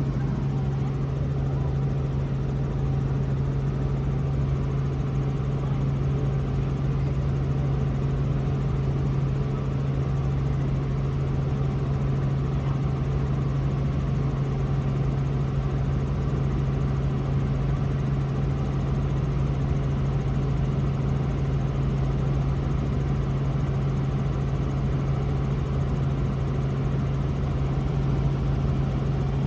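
Robinson R44 helicopter heard from inside the cabin: a steady drone of engine and rotors with a strong low hum over a broad rushing noise, unchanging throughout.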